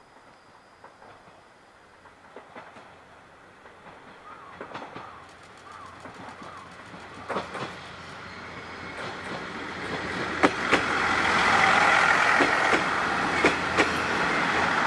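KiHa 110 series two-car diesel railcar approaching and running close past while pulling into a station, its running noise growing steadily louder. Sharp, irregular clacks of the wheels over rail joints come in about a third of the way through and get louder toward the end.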